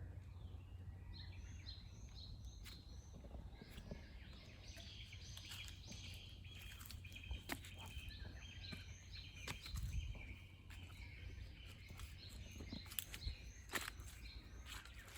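Forest ambience: small birds chirping and twittering again and again, over a low rumble of wind, with scattered sharp crackles such as dry leaves and twigs underfoot.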